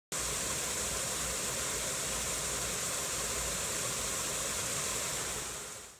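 Steady hissing noise with no distinct events, fading out near the end.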